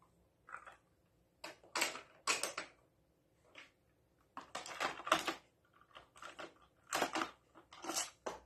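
Hard plastic clicks and clacks of VTech Toot-Toot toy cars being picked up and set down on the plastic toy garage, about a dozen separate knocks with short pauses between them.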